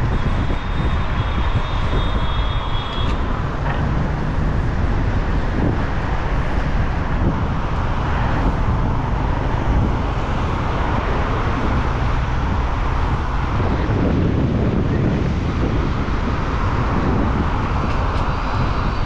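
Gale-force wind blowing hard across the microphone: a steady, gusty low rumble with a rushing noise over it. A faint thin high whistle sounds in the first three seconds.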